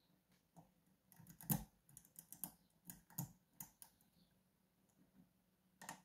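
Light, irregular clicks and taps of a hook pick working the rotating key pins of a Medeco Biaxial cam lock under tension, loudest about a second and a half in.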